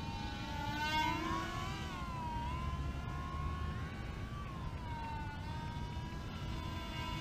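Small electric radio-control foam model of a C-17 Globemaster III in flight: its motors and propellers give a high whine that rises and falls in pitch as the plane manoeuvres and passes. Wind rumbles low on the head-mounted microphone underneath.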